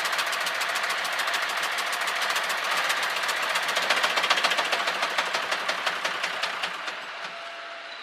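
Hino J08C diesel engine running with a rapid, even metallic tak-tak knock that grows quieter near the end. The knock is loudest at the number one cylinder and is the sign of a piston broken at its crown there.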